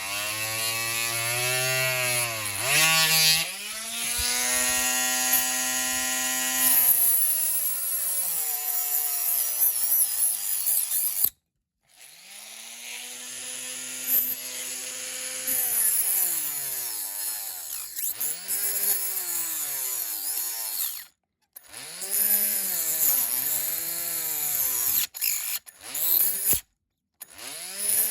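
Handheld rotary multi-tool running at high speed, cutting into a die-cast metal model grille. Its whine sags in pitch again and again as the bit bears on the metal, then climbs back. It cuts out abruptly about three times.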